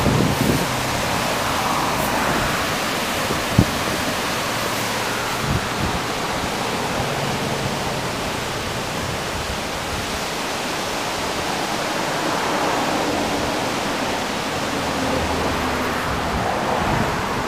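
Steady rushing of a flood-swollen river running through rapids in a rock gorge. There is one brief knock about three and a half seconds in.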